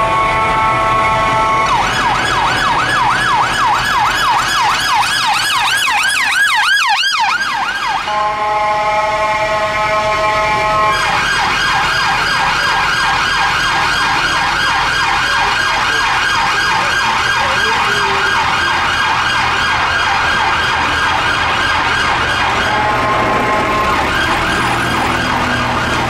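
Electronic sirens of City of London Police cars switching between modes: a wail that speeds up into a yelp, then a fast warble. These are broken by blasts of a steady, harsh horn tone (the 'bull horn') at the start, about eight seconds in, and again near the end.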